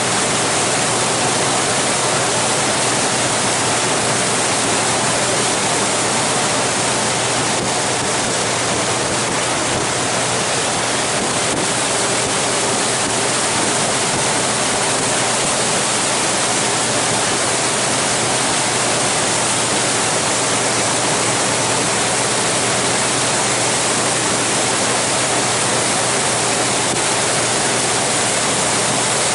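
Steady, even rushing noise of wind and water streaming past a moving glacier cruise boat.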